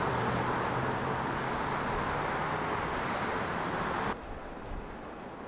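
Subway train running, a loud steady rushing noise with a faint low hum underneath, cut off abruptly about four seconds in to a much quieter background.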